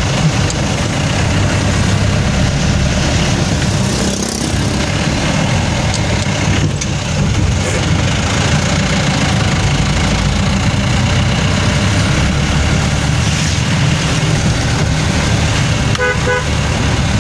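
Steady low engine rumble and tyre noise heard from inside a moving vehicle on a wet road. Near the end come a few short horn beeps.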